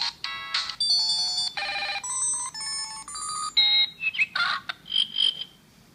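A PHS J98 handset playing its electronic ringtone melody, a quick run of bright beeping notes that stops about five and a half seconds in; the phone is still working after 90 minutes in a washing machine.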